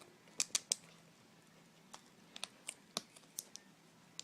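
Scattered small, sharp plastic clicks and taps from a laptop's display cable connector and its tape being worked loose by hand: three quick clicks under a second in, then a loose run of clicks a couple of seconds later.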